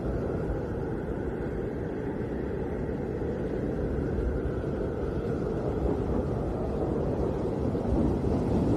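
Snowstorm wind blowing steadily: a low, unbroken rushing noise that swells slightly near the end.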